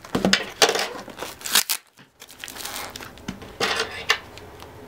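Paper and tape wrapping of a small parcel being torn open and crinkled by hand, in a run of short rips and rustles with a brief pause about two seconds in.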